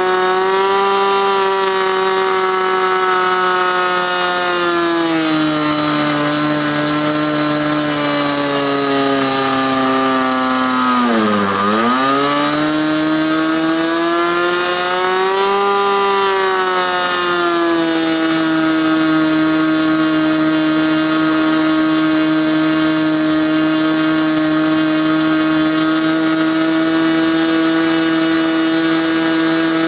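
Small model-airplane engine and propeller on a SIG Kadet LT-40 trainer, running during break-in with its needle valve just set. It makes a steady buzz that drops in pitch about five seconds in as the throttle is pulled back from about half. Near the middle it dips briefly lower, then climbs and settles back at the half-throttle note.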